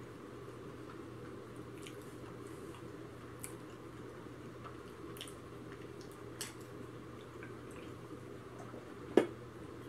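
Faint sipping, swallowing and mouth clicks from drinking ginger ale out of an aluminium soda can, over a steady low room hum. About nine seconds in, one sharp knock stands out as the loudest sound: the can being set down on the table.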